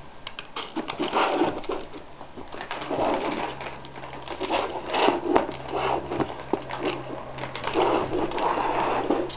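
Two cats pawing food out of a plastic anti-gulp slow-feeder bowl and eating: irregular clicking and rattling of food and claws against the plastic, with the bowl knocking and shifting on the floor.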